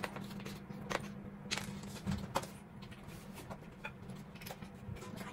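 Scattered light clicks and knocks of wooden bed-frame slats and hardware being handled during assembly, over a steady low hum.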